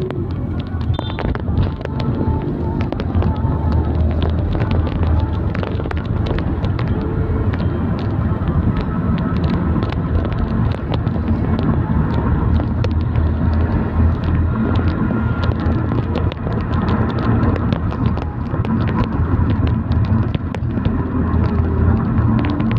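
Wind buffeting a microphone on a moving vehicle: a continuous low rumble with constant crackling, over the noise of the engine and passing traffic.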